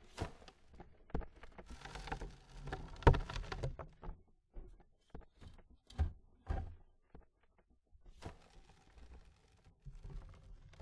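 Dirt being shoveled: a shovel scraping into soil, then loads of dirt thudding and pattering down. It comes in several separate shovelfuls with short pauses between, and the loudest thud is about three seconds in.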